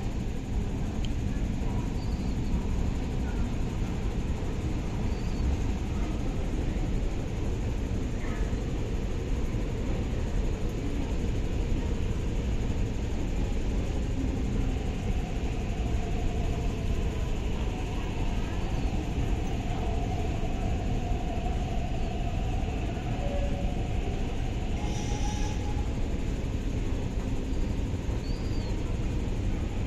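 Steady rumble and hum inside a standing MTR East Rail Line R-Train car, with a faint wavering tone through the middle stretch and a short hiss about 25 seconds in.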